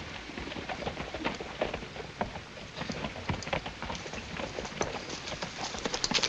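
Hoofbeats of a single horse walking on a rocky dirt trail: irregular clopping over a steady hiss.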